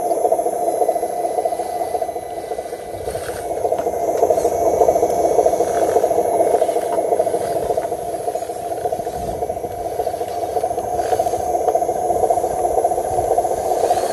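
Radio-controlled model truck's electric motor and gearbox whirring steadily as it drives across grass, a constant mid-pitched whir.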